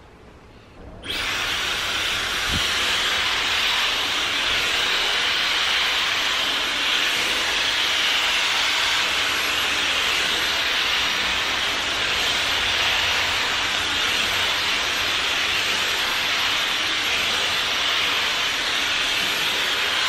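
Dyson hair dryer switched on about a second in, then blowing steadily with a loud, even rush of air as it dries hair.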